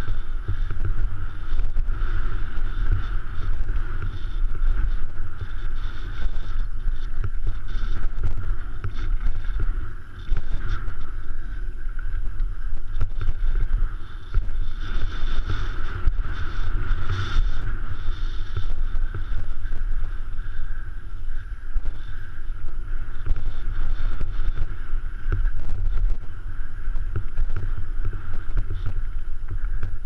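Wind buffeting the microphone of a GoPro on a mountain bike descending a rough dirt and rock trail, over a steady rumble and a constant light rattle from the tyres and bike.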